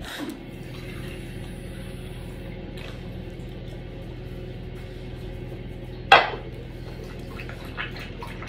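A dog talking button pressed once by a paw about six seconds in, playing its short recorded word "drink" through its small speaker. Near the end a cocker spaniel starts lapping water from a bowl.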